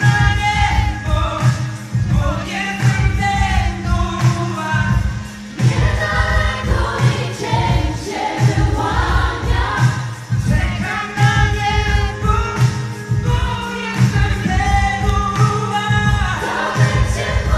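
Live pop music: a vocal group singing together in harmony over a band with a steady, pulsing bass beat.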